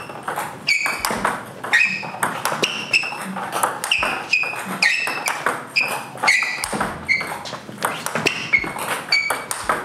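Table tennis multi-ball drill: a rapid, irregular run of sharp pinging clicks as the ball is fed, bounces on the table and is struck with forehand topspin drives against backspin.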